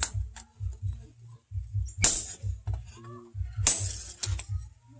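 Hammer blows on a handled top tool held against a red-hot axe blank on the anvil: three heavy metallic clanks about two seconds apart, each ringing high, with lighter taps between. A low, regular pulsing runs underneath.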